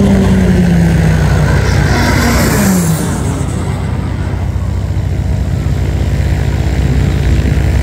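Embraer A-29 Super Tucano turboprop aircraft flying aerobatics overhead: a loud, steady propeller drone whose pitch drops as planes pass, twice in the first three seconds.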